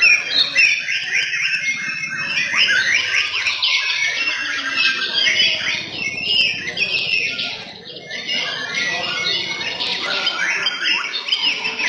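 White-rumped shamas (murai batu) singing in a contest, several birds at once: rapid, varied whistled phrases overlapping with little pause, easing briefly about eight seconds in.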